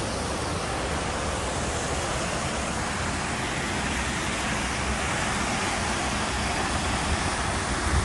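Steady rush of a river waterfall pouring down over a series of rocky steps.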